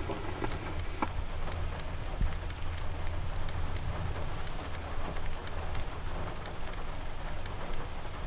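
Steady rain falling, with a low rumble underneath and scattered sharp drip clicks a few times a second.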